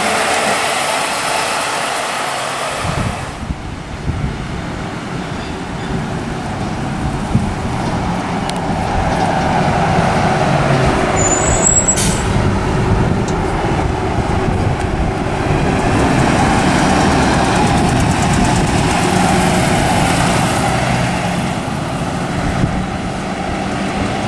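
Diesel single-deck buses running along a concrete guided busway, with engine and road noise that grows louder through the middle as a bus comes by.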